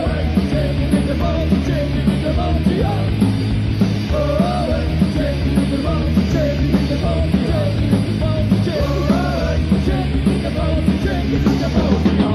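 Loud punk rock song played by a full band, dense and continuous with heavy bass.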